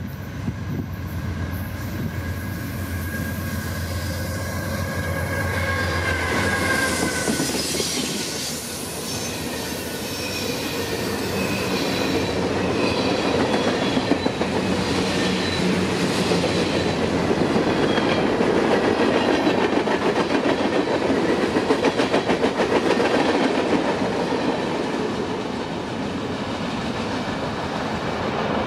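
Diesel freight locomotive sounding its multi-tone horn with its engine running as it approaches and passes, the horn chord dropping in pitch about seven seconds in as it goes by. A long train of freight cars then rolls past, wheels clacking over the rail joints.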